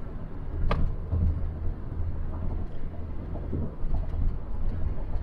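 Road and engine noise heard inside a car's cabin at freeway speed: a steady low rumble, with one brief sharp click a little under a second in.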